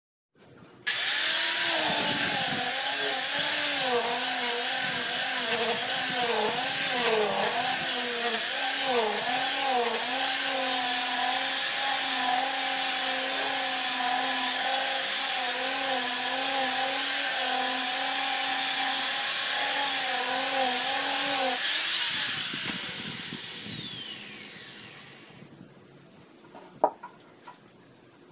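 Electric palm sander running against an ipil hardwood sofa frame, its motor whine wavering in pitch as it is pressed and moved along the wood. About 22 seconds in it is switched off and spins down with a falling whine, followed by a couple of faint knocks.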